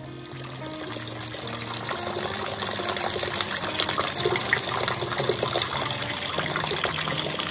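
Heavy rain falling: a steady rushing hiss with many small drips and splashes, building up over the first few seconds.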